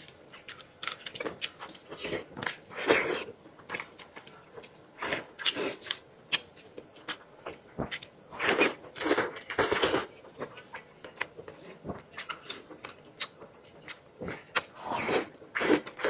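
Chewing and biting into fatty braised meat, an irregular run of smacks and clicks from the mouth.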